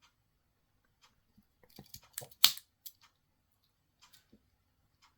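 Victorinox Spartan Swiss Army knife being worked by hand, its tools snapping on their backsprings as they are folded and opened: a short run of sharp metallic clicks about two seconds in, with a few faint ticks later.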